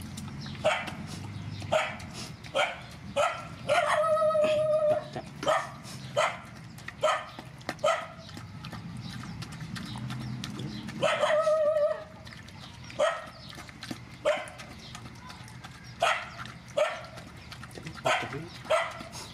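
Young puppy crying: a run of short, high yelps about one every half second to a second, with two longer drawn-out cries, one about four seconds in and one about eleven seconds in.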